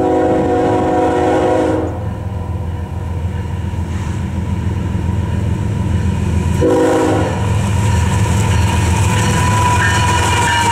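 CSX freight train's lead diesel locomotive sounding its multi-chime air horn: a blast of about two seconds at the start and a short blast about two-thirds of the way through. Under it, the steady low rumble of the locomotives' diesel engines grows louder as they approach and pass close by near the end.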